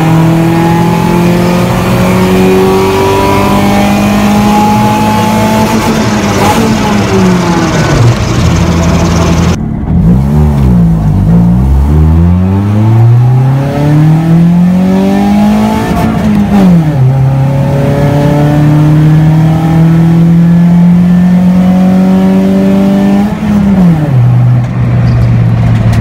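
A 1992 Honda Civic's four-cylinder engine revs hard under acceleration, heard from inside the cabin. Its pitch climbs steadily and then drops sharply at each upshift, several times over. This is a wide-open-throttle run toward the 6,500 rpm redline.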